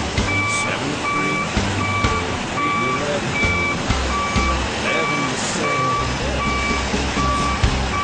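Peterbilt dump truck's back-up alarm beeping steadily as it reverses, evenly spaced beeps a little more than one a second, over the truck's diesel engine running.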